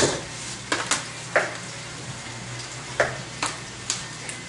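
A kitchen utensil clinking and scraping against a pot and an aluminium foil pan while macaroni is mixed: about eight short, sharp clinks spread irregularly, over a steady low hum.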